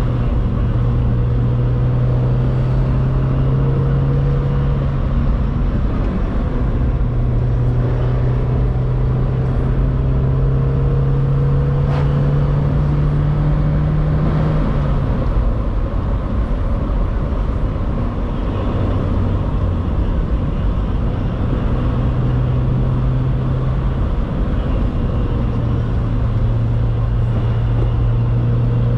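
Mazda MX-5 Miata NB being driven, heard with road noise: its engine runs at a steady note, which breaks off and comes back a few times.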